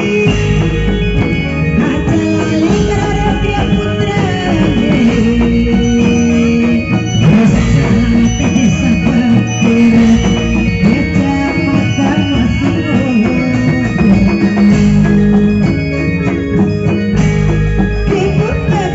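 Live Reog Indramayu ensemble music: drums and other percussion under a gliding melodic line, playing a steady, continuous dance accompaniment.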